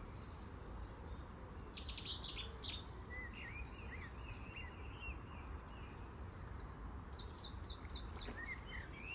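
Songbirds singing: bursts of rapid high chirps and trills about a second in and again near the end, with lower whistled notes between them, over a steady low rumble.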